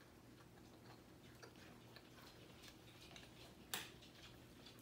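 Near silence with the faint mouth clicks and lip smacks of people chewing marshmallow Peeps candy, and one sharper click about three-quarters of the way through.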